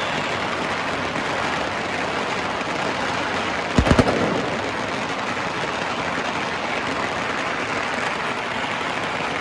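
Dense, continuous crackle and popping of firecrackers and fireworks going off all over the city, echoing between tower blocks. A louder, closer burst of two or three bangs comes about four seconds in.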